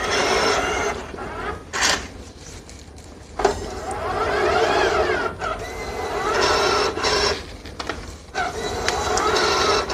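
Cashmatic cash recycler taking in a $10 note and paying out change: motors whirring in stretches, with a whine that rises and falls in pitch about halfway through, and a few sharp clicks.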